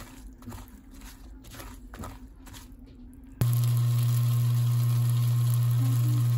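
Squid pancake batter stirred with a plastic ladle, faint and scratchy at first. About three and a half seconds in it switches to a pancake frying in a pan: faint sizzling under a steady low hum.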